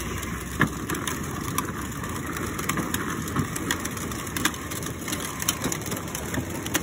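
Ride-on toy Jeep rolling along a concrete sidewalk: steady rolling noise from its hard plastic wheels, with scattered clicks and crunches.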